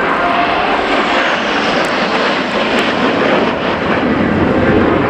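Loud, steady jet noise from four F-16 fighter jets flying overhead in close formation.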